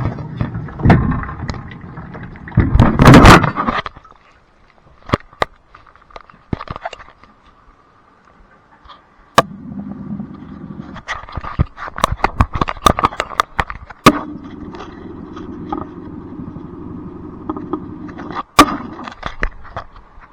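Blanco dishwasher running: a loud rush for the first few seconds, then scattered sharp clicks and knocks. A low motor hum starts about nine seconds in, with a faint steady whine above it.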